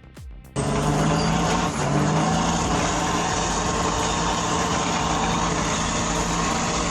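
A short electronic music beat cuts off about half a second in. A loud vehicle engine then runs steadily, with a low hum and a dense wash of noise.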